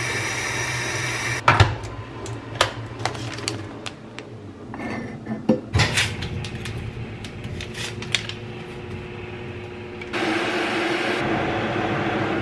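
Tap water running into a stainless-steel electric kettle, stopping abruptly about a second and a half in. Then scattered clicks and knocks as the kettle and a mug are handled on a kitchen counter, and a steady hum that starts near the end.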